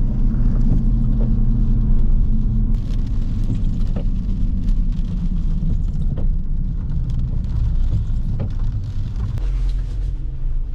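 Car driving: a steady low engine and road-noise rumble, with a few faint knocks.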